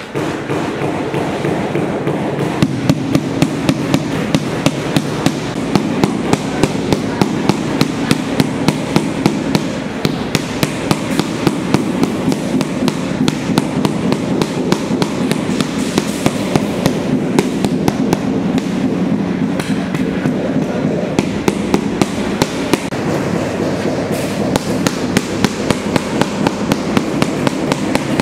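Rubber mallet tapping a large porcelain floor tile over and over, steady quick taps of a few a second, bedding the tile into the cement mortar and levelling it.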